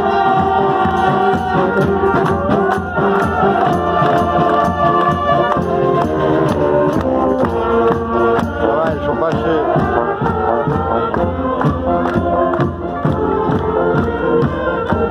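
Street brass band playing: saxophones and trumpets holding sustained notes over a steady beat.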